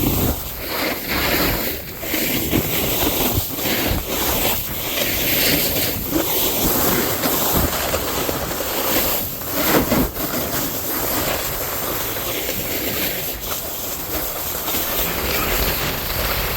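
Snowboard sliding and carving through wet slushy snow, a continuous rushing scrape that swells and dips, mixed with wind buffeting the microphone.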